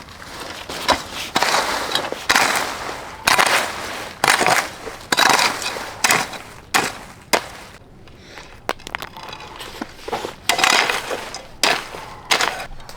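Leafy vegetable plants rustling and crackling in irregular bursts as they are handled and pushed aside.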